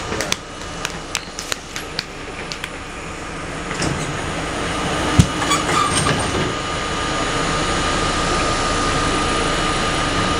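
Subway train heard from inside a moving car: a steady rumble and rattle with a thin, steady whine. There is a run of sharp clicks in the first two seconds and a single knock a little after five seconds, and the noise grows louder from about four seconds in.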